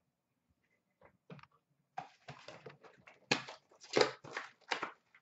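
Hands rustling and crinkling a trading-card pack's foil wrapper. It is a run of short, irregular rustles that starts about a second in and is loudest in the middle.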